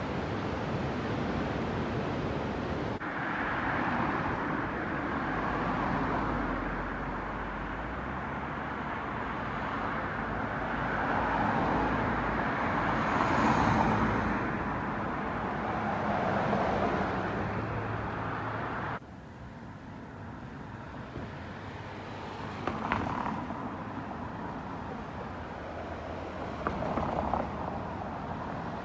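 A few seconds of surf and wind, then cars passing on a road one after another, each rising and fading. About two-thirds of the way in it drops to quieter street traffic with a couple of sharp knocks.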